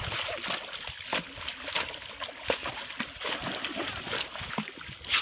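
A dog biting and snapping at swimming-pool water, making a run of irregular, quick splashes and sloshing.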